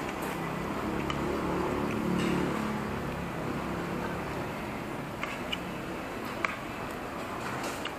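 A metal spoon and fork clinking a few times against a ceramic plate during a meal, over a steady low background hum that swells about two seconds in.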